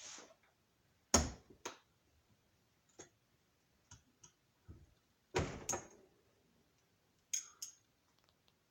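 Metal hand tools, sockets and wrenches, being picked up and set down: several sharp clanks and clicks, mostly in pairs, the loudest about a second in and about five seconds in.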